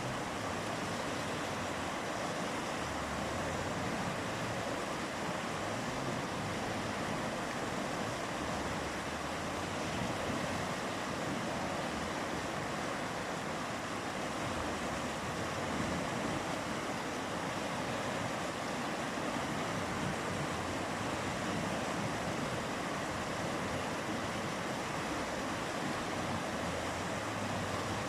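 A fast mountain river rushing steadily, a dense even wash of flowing water.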